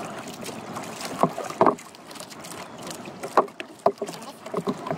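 Small outrigger boat on choppy water: a steady wash of wind and water with several sharp knocks against the boat scattered through, the loudest about a second and a half in.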